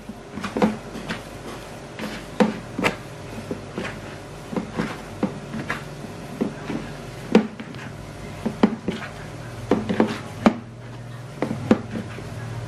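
Hands kneading glutinous rice flour dough in a plastic bowl: irregular soft thumps and knocks as the dough is pressed and slapped against the bowl.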